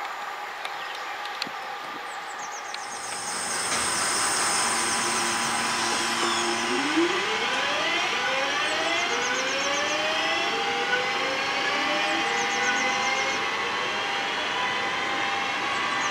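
London Midland Class 323 electric multiple unit pulling away. From about three seconds in, its traction motors give a whine that climbs in pitch in several rising steps as it gathers speed.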